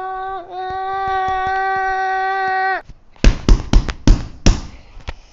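A voice making a vocal sound effect: a short rising-and-falling glide, then one long steady held note for about two seconds. After it come several sharp clacks of LEGO pieces knocking on a plastic baseplate.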